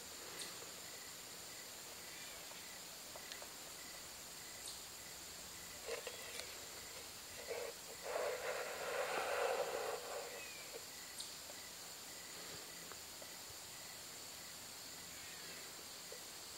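Insects, crickets or similar, singing steadily in two continuous high-pitched tones, with a fainter pulsing chirp beneath. About eight seconds in, a louder rustling noise lasts roughly two and a half seconds, and a few faint clicks come and go.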